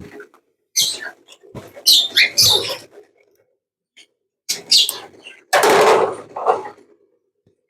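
Parrots calling in harsh, squawking bursts, about four groups of calls with short pauses between, the loudest a little past the middle.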